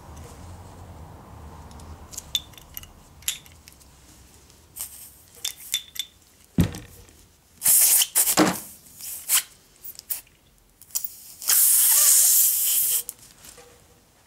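Air hissing out of a garden cart's tubeless tyre through the puncture, in a short burst just before the middle and a longer one near the end, as the reamer comes out and the vulcanising plug strip is pushed in. Before that come a sharp knock and scattered clicks from handling the plug tools.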